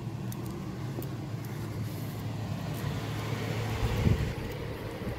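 A motor vehicle engine running steadily with a low hum, with a brief louder thump about four seconds in.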